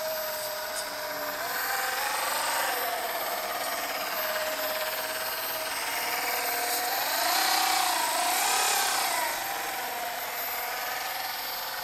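RC boat outboard's motor and all-3D-printed bevel-gear drivetrain running at open throttle, a steady high whine. Its pitch climbs right at the start and swells and wavers around two seconds in and again from about seven to nine seconds in.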